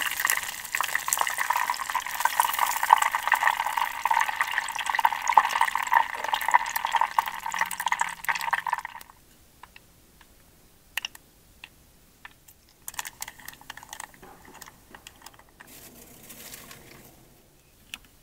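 Shrimp deep-frying in a Twinbird compact fryer: hot oil crackling and sizzling hard and spattering, cutting off abruptly about nine seconds in. After that, only scattered light clicks and soft rustling are heard.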